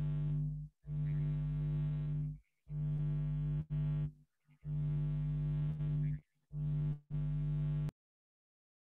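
Steady electrical hum with a buzzy tone, carried over a breaking-up online call connection. It cuts out abruptly about five times and stops dead about eight seconds in, the audio dropouts the participants are complaining about.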